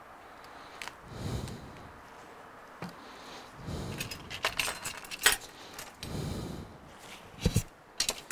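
Handling noise from a tablet being turned over on a workbench, with a run of sharp clicks and a light metallic rattle of small hand tools being picked up from a tray, and a few soft rustles in between.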